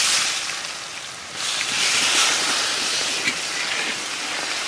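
Sliced onions sizzling loudly as they hit hot mustard oil with whole spices in a wok, a steady hiss that swells again about a second and a half in as they fry.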